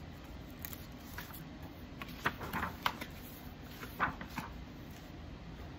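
A hardcover picture book being opened and its pages turned: a scatter of short paper rustles and soft taps, the loudest about two and four seconds in.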